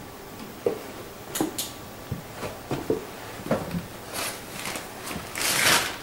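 Handling and movement noise from a handheld camera being carried about: irregular soft knocks and rustles, with a louder rushing rustle about five and a half seconds in.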